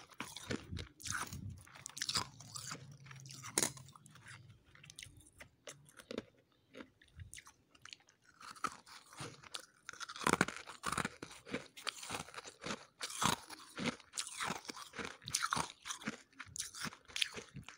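Freezer frost being chewed close to the microphone: dense, irregular crunching, with a quieter lull in the middle before the crunching picks up again.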